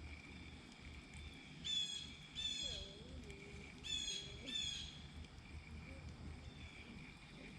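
A bird calling: four short calls with rich overtones, in two pairs about two seconds apart.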